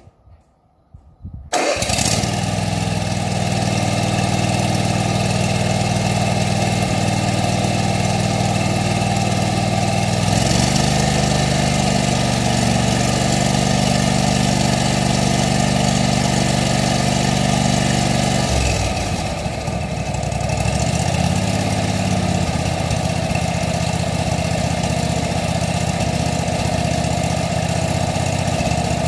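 A Honda GCV530 16 hp V-twin on a ride-on mower is cranked briefly by the starter, catches and runs steadily on its test run after a carburettor service and new spark plugs. The engine note rises about ten seconds in, sags for a couple of seconds about two-thirds of the way through, then picks up and runs on.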